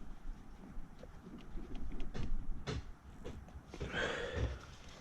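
Scattered clicks and knocks of hands and tools working on engine parts under the hood, with a louder cluster of knocks a little past the middle and a short rustling, breathy noise near the end.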